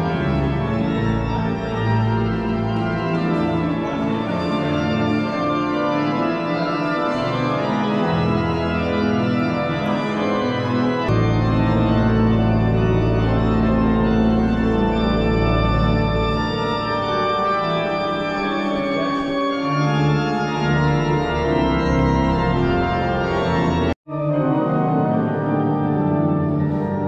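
Organ music: long sustained chords over deep held bass notes, breaking off for an instant near the end.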